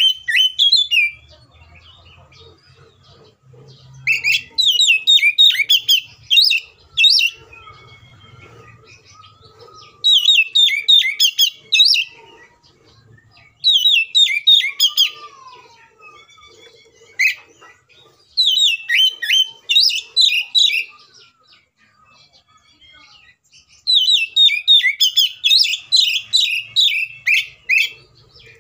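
Oriental magpie-robin (kacer) singing loudly in its combative full song: bursts of rapid, high, varied notes lasting one to four seconds, repeated about seven times with short pauses between. The longest run comes near the end.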